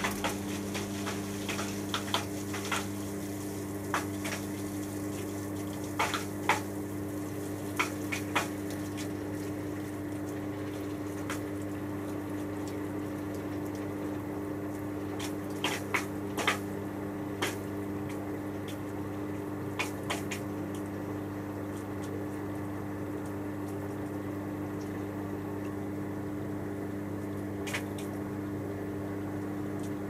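Hotpoint HF8B593 washing machine in the cool-down stage of its 90°C cotton wash, running with a steady low hum and the sound of moving water. Irregular clicks and drips come through now and then.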